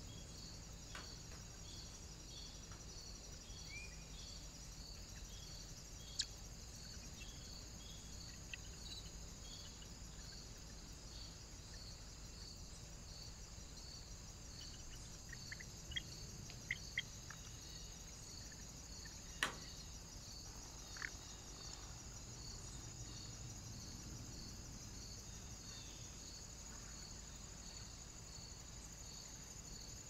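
Faint, steady high-pitched chirping of insects, pulsing at an even rhythm, with a few short sharp clicks, the strongest about two-thirds of the way through.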